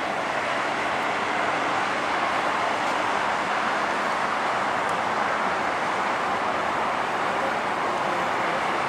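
Jet airliner rolling out on the runway just after landing, its engines making a steady, even noise with no rise or fall in pitch.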